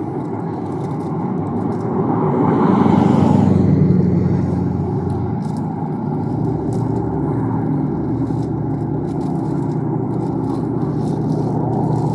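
Car engine and road noise heard from inside the cabin. A steady rumble swells louder for a couple of seconds, about two seconds in, then settles.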